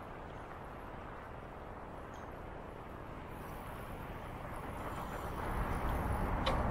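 Steady rush of wind and traffic noise heard while riding a bicycle, growing louder about five seconds in, with one short click near the end.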